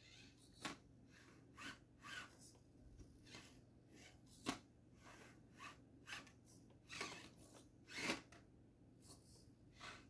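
1/24-scale Axial SCX24 Deadbolt RC crawler clambering over stone blocks: faint, irregular clicks and scrapes of its tires and chassis on the rock, about one or two a second, with the sharpest knock about halfway through and another near the end.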